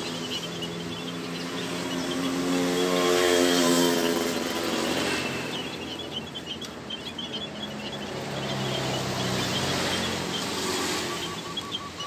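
A motorcycle engine passing on the road, swelling to its loudest about three to four seconds in and then fading, with another engine hum later on. Munias in the aviary chirp softly throughout the second half.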